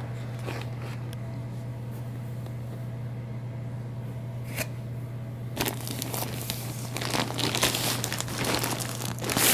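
Plastic shipping bags crinkling as they are handled and pulled open. The crinkling starts about halfway through and gets louder, with a single click before it and a steady low hum underneath.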